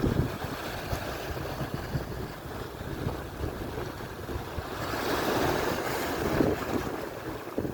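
Atlantic surf washing onto the shore, with wind buffeting the microphone; a wave swells louder about five seconds in and then recedes.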